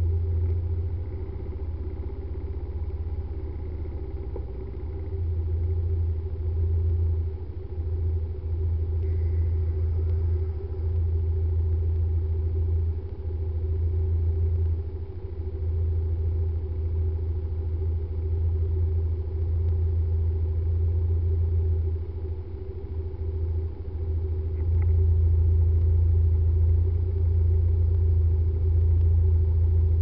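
Steady low rumble of idling scooter engines stopped at a traffic light, picked up muffled through a dashcam microphone. It gets somewhat louder about 25 seconds in.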